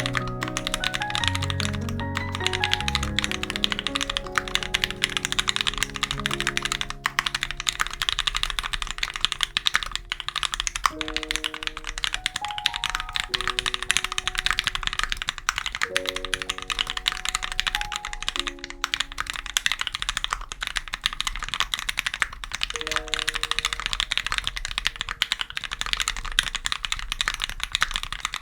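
Fast typing on a Satisfaction75 custom mechanical keyboard fitted with lubed Turquoise Tealios 67g linear switches on a brass plate and GMK keycaps: a dense, continuous run of keystroke clacks. Gentle background music plays underneath and stops near the end.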